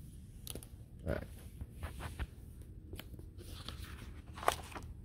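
Faint, scattered rustles and taps of paper as pages of a spiral-bound book are handled and turned, a few short ones about a second apart, the sharpest about four and a half seconds in.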